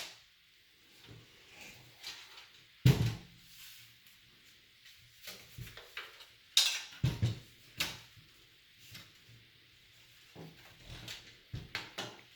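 Scattered knocks, clicks and clatter of computer case parts being handled, with quiet gaps between; the strongest knocks come about three seconds in and around seven seconds in.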